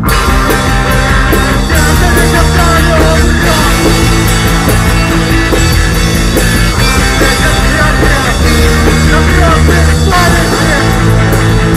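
A rock band playing a loud post-punk song on electric guitars and drums, with the whole band coming in at full volume right at the start.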